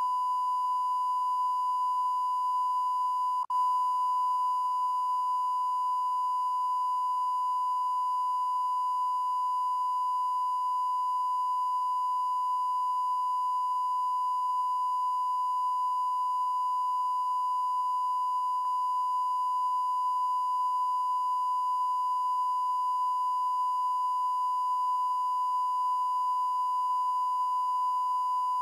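Continuous electronic beep tone: one steady, unchanging high pitch held without a break, loud and even, with a single very brief dropout about three and a half seconds in.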